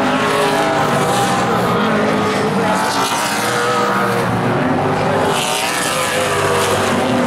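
Late model stock car V8 engines running hard at racing speed as a pack of cars goes through the turns. Their pitch rises and falls as the cars lift and get back on the throttle.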